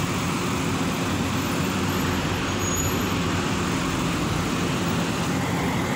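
Steady city street traffic noise, with the low hum of car engines running nearby.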